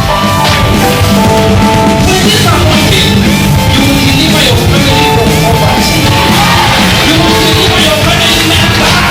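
Loud music with a heavy, steady low end and long held notes.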